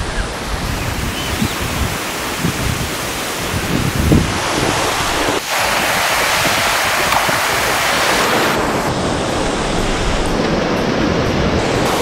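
Mountain stream rushing over rocks, a steady roar of water, with wind buffeting the microphone in low gusts. The water noise swells for a few seconds in the middle.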